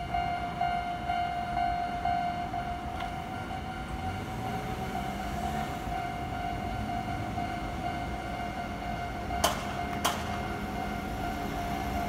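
Japanese railway level crossing's electronic warning bell ringing steadily as its lights flash. A low rumble builds from about four seconds in, and two sharp clicks about half a second apart come near the end.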